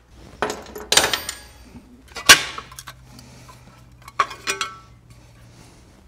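A ratchet and wrench clinking against the metal fittings of a motorcycle's fender support as bolts are worked loose: scattered light clinks, with one sharp metallic clank a little over two seconds in.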